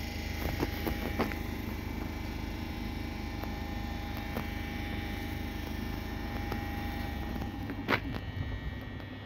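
Steady low hum of electric multiple-unit trains standing at the platform, with a faint steady whine above it. A few short sharp clicks fall over it, the loudest about eight seconds in.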